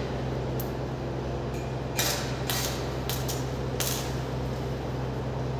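Stick (MMA) welding arc on a steel pipe joint, run with a 2.5 mm electrode at 110 A: the electrode is struck and the arc flares in several short bursts from about two seconds in, as a tack weld is laid.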